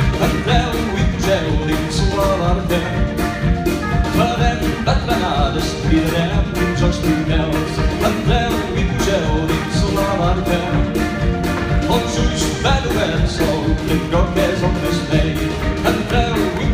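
Live band music with a steady, driving beat, heard from the audience in a concert hall.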